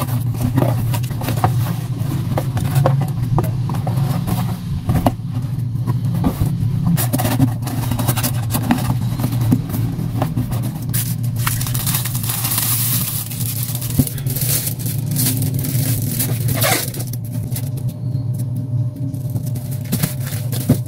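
A cardboard box being closed and wrapped in gift paper: scattered rustling, crinkling and taps of paper and cardboard, with a louder crinkly stretch around the middle, over a steady low hum.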